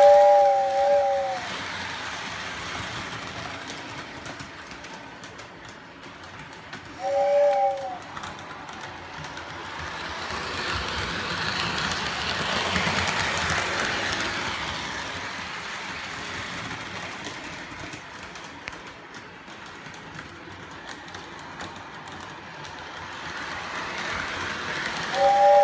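Polar Express toy train's whistle sounding three short two-tone blasts: a doubled blast at the start, one about seven seconds in and one near the end. Between them the toy train runs on its track, a steady noise that swells in the middle.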